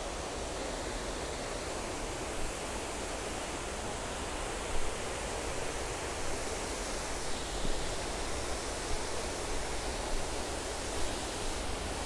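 Sri Dit Waterfall's falling water making a steady, even rush. The fall is running on its low flow at the end of the rainy season. There is one brief bump about five seconds in.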